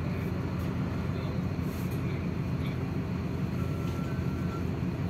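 MAZ city bus's diesel engine idling while the bus stands at a stop, a steady low rumble heard inside the passenger cabin. A faint short tone sounds about four seconds in.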